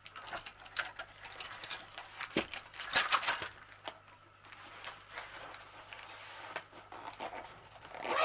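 Rustling, crinkling and light clicks of packaging and small items being handled, in irregular bursts, loudest about three seconds in.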